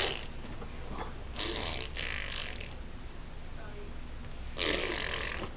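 Fart noises: four short, hissy, sputtering bursts with pauses between them, the last one the longest.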